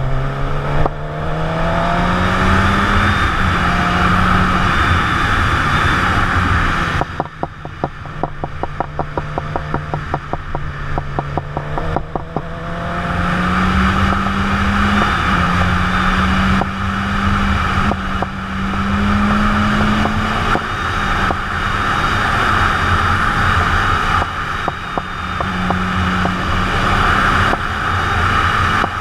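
Sport motorcycle engine pulling under wind rush, its note rising and falling with the throttle. About seven seconds in it goes off the throttle and runs quieter and choppy for several seconds, then picks up and pulls again.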